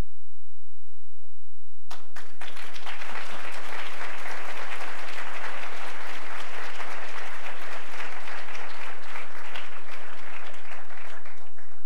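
Audience applauding, beginning with a few scattered claps about two seconds in, swelling quickly into steady applause and easing off near the end.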